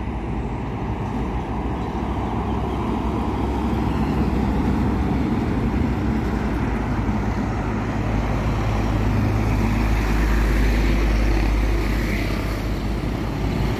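Heavy diesel trucks, a Hino LPG tanker among them, driving past on a highway: a steady low engine drone with tyre and road noise, growing louder about a third of the way in.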